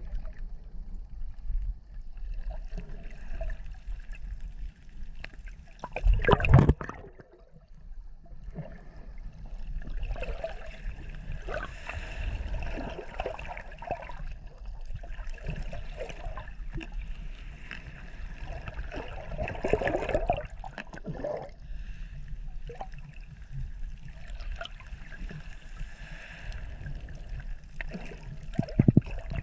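Water sloshing and gurgling around a camera held just below the surface in shallow water, heard muffled as if underwater, with louder splashing surges about six seconds in, around twenty seconds in and near the end.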